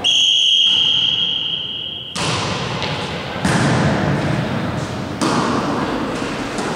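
Referee's whistle blown in one long, steady blast of about two seconds, then a volleyball struck three times in the serve and rally, each hit echoing in the gymnasium hall.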